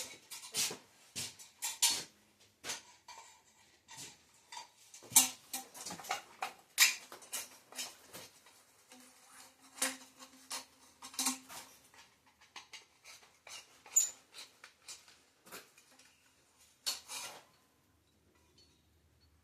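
Metal parts and tools being handled on a workbench: irregular clinks, clanks and knocks, a dozen or so sharper ones among lighter rattling, dying away near the end.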